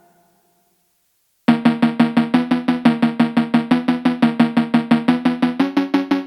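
Background music. After about a second and a half of silence, a new track starts with a fast, even run of short pitched percussive strikes, about seven a second.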